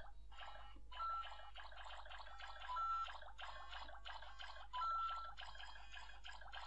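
LEGO Luigi interactive figure playing electronic game music and sound effects through its small built-in speaker, tinny and choppy, with several short steady beeps.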